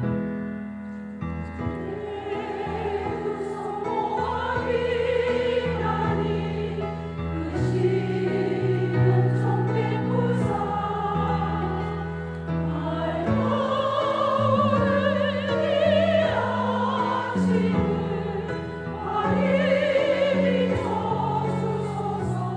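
Church choir singing a sacred song in Korean, the voices rising and falling with clear vibrato, over piano accompaniment.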